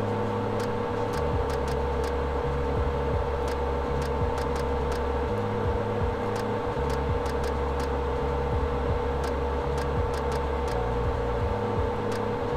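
Steady electrical hum with a steady high whine from soldering bench equipment running, with faint scattered ticks as copper desoldering braid and a soldering iron wick solder off a flash drive controller's pads.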